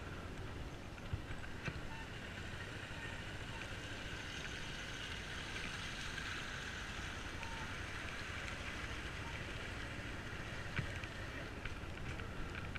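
Bajaj Pulsar motorcycle running slowly over a muddy, rutted road, its engine and road noise steady, with a few sharp knocks as it jolts over bumps. An oncoming car passes close by about halfway through, swelling the noise for a few seconds.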